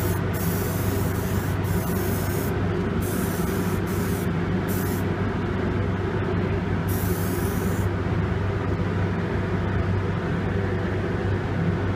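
Aerosol rattle can of primer hissing in several on-off spray bursts, the longest about two and a half seconds, stopping about eight seconds in. Beneath it runs a steady low hum.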